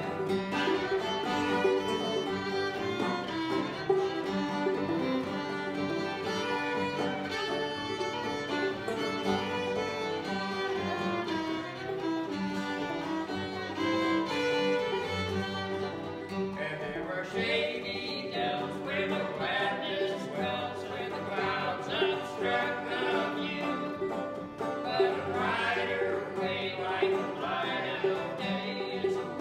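Old-time string band of two fiddles, banjo and acoustic guitar playing a tune together.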